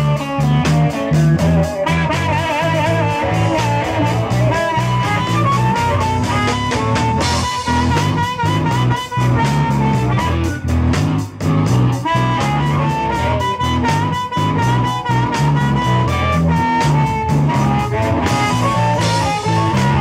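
A live blues-rock band plays: electric guitar, bass guitar and drum kit keep a steady beat, under a wavering lead melody line.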